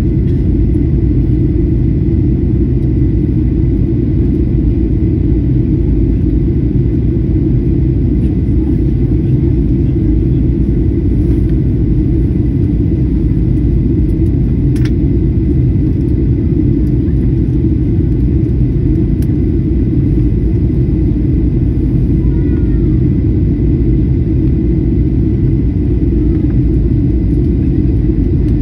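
Airliner cabin noise: a steady low roar of engines and rushing air, unchanging in level.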